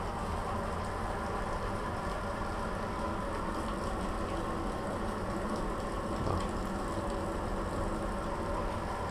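Steady strong wind rushing and buffeting the microphone, with a fluttering low rumble.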